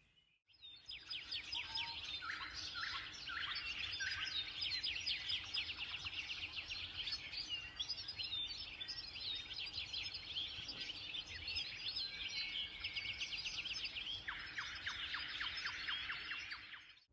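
Dawn chorus: several songbirds singing at once, with dense overlapping chirps, whistles and trills. Near the end one bird adds a fast trill of repeated notes.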